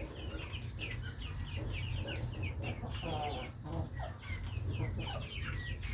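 A flock of chickens calling busily as they feed on an omena-and-wheat mix: many short, falling high-pitched calls overlapping with a few lower clucks, over a steady low rumble.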